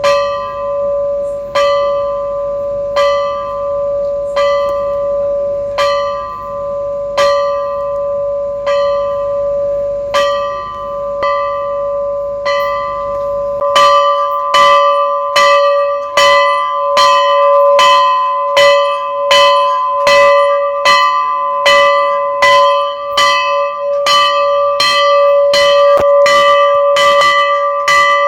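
Temple bell rung repeatedly in a steady rhythm, each stroke ringing on into the next. The strokes come a little more than one a second at first, then quicken to about two a second about halfway through.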